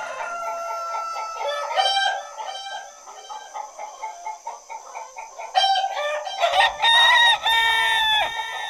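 Chicken clucks and crowing-style calls chopped into a bass/techno remix, in a breakdown with the low end dropped out. A low bass layer comes back about six and a half seconds in, under longer, drawn-out calls near the end.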